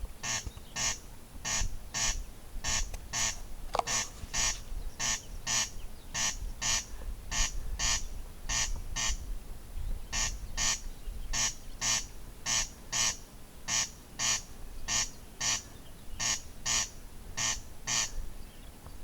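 Corncrake giving its rasping double 'crex crex' call, pairs of notes repeated about every 1.2 seconds. There is a short break about halfway, and the calling stops about a second before the end.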